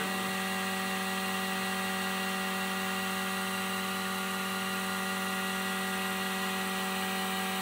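Steady electric machine hum with a strong low tone and a stack of fixed higher tones: a vacuum pump running to hold vacuum on a resin-infusion bag.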